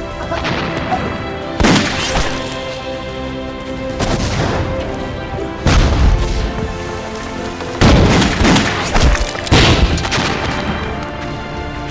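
Battle-scene sound effects of explosions and gunfire: a series of heavy blasts, the biggest about six and eight seconds in, over a sustained dramatic music score.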